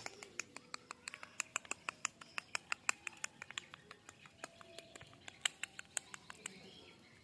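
A dog's claws clicking on a hard floor as it moves about: quick light taps several times a second, thinning out about four seconds in.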